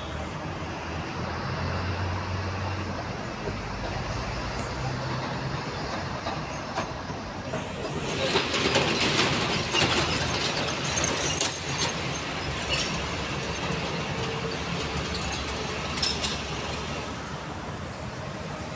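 Road and engine noise heard from inside a moving vehicle at highway speed: a steady rumble with a low engine hum, growing louder and rougher for a few seconds about eight seconds in as traffic passes close by.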